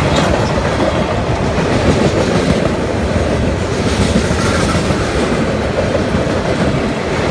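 Freight train cars rolling past: a steady rumble with the clatter of steel wheels over the rails.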